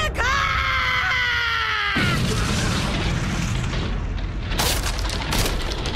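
A long shouted battle cry, falling slightly in pitch, for about two seconds. It gives way to a heavy anime impact boom and rumble, with sharp crashing cracks about two-thirds of the way in.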